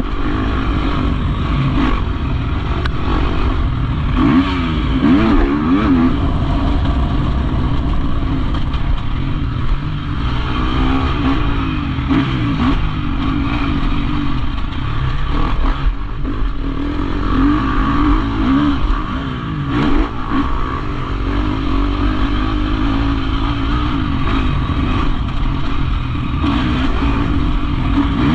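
Motocross bike engine revving hard, its pitch rising and falling again and again as it is ridden around a dirt track, heard from the bike's onboard camera.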